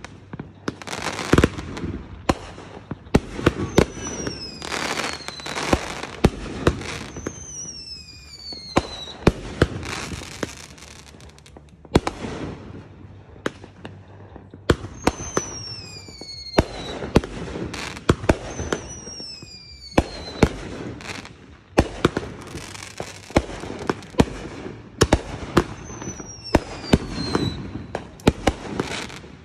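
Fireworks display: aerial shells bursting in a steady string of sharp bangs with crackling between them, and several whistles that fall in pitch over about a second each.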